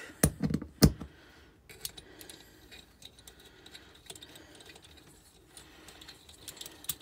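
Metal hand tool and nuts clicking and knocking against the cast aluminium cylinder head of a Sachs 502/1A moped engine as the head nuts are run down on their studs: two sharp knocks within the first second, then light ticks and scrapes, with another click near the end.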